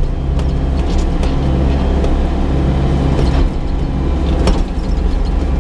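Excavator's diesel engine running steadily under working load, with a few sharp metallic knocks over the drone.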